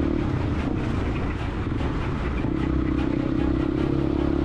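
Motorcycle engine running steadily while riding, a constant drone that fades for a moment and comes back about halfway through.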